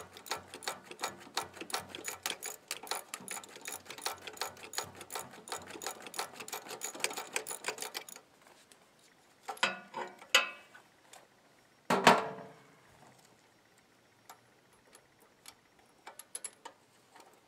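Ratchet wrench clicking fast and evenly as a spark plug is turned into a portable generator's engine; the clicking stops abruptly. Then two knocks of metal, the louder about twelve seconds in.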